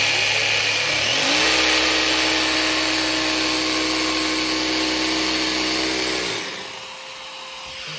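Festool Carvex cordless jigsaw cutting laminated board. It starts at the low speed of its auto mode, and about a second in its pitch rises as the blade bites and the motor spins up to full cutting speed. The saw stops about six seconds in, leaving the attached dust extractor running on.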